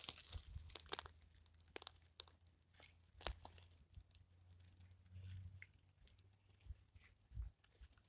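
Dry pine needles and twigs crackling and rustling in short, scattered crackles, with a few sharper snaps, as a morel mushroom is picked out of the forest litter by hand.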